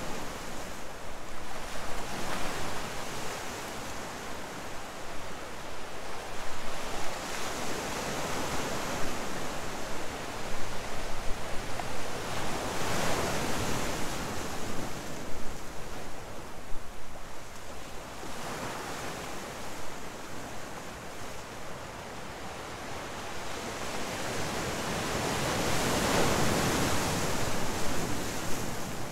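Ocean surf breaking and washing over a rocky shore: a steady rushing hiss that swells and fades with each wave, loudest about 13 seconds in and again near the end.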